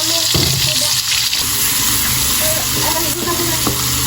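Steady rushing noise like water pouring or gushing, with a low hum that sets in shortly after the start.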